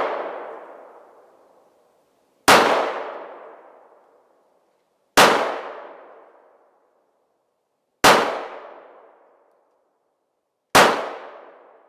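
Springfield Armory XDM .45 ACP pistol fired four times in slow single shots, roughly three seconds apart, each sharp report trailing off in an echo over more than a second. These are the first rounds through the new pistol, fired to check that it cycles.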